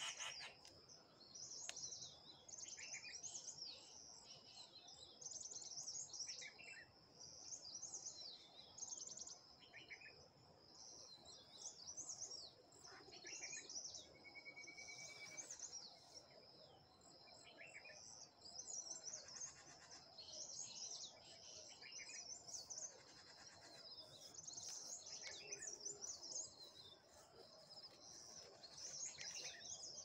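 Faint chorus of several wild birds chirping and trilling, with short calls every second or so, over a steady high-pitched tone.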